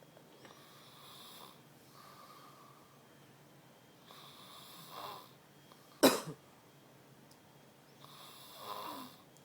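Snoring: slow, rasping breaths every couple of seconds, with one sudden, much louder snort about six seconds in.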